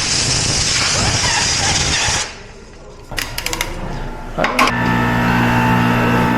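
Compressed air hissing loudly into a tire through the tire changer's inflation hose, cutting off suddenly about two seconds in. A few sharp clicks follow, then an electric motor starts and runs with a steady hum.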